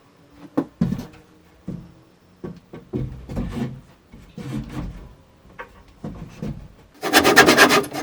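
Wood being worked by hand: scattered irregular wooden knocks and clunks, then about seven seconds in a loud, fast, even rasping scrape of roughly eight strokes a second.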